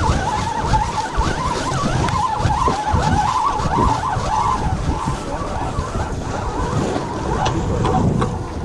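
Penn Fierce II spinning reel being cranked to winch a heavy crab snare up the jetty. Its gears whir with a wavering whine for about the first four or five seconds, over a rumble of wind and surf.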